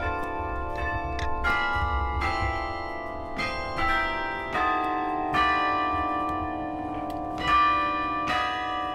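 Tower bells playing a tune: one bell after another is struck at an uneven pace of roughly one or two notes a second, each note ringing on under the next.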